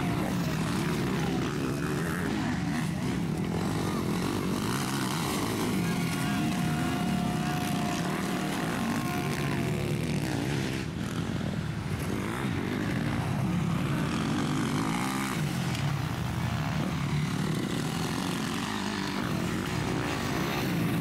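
Motocross bike engines racing on a dirt track, their pitch rising and falling as riders open and shut the throttle.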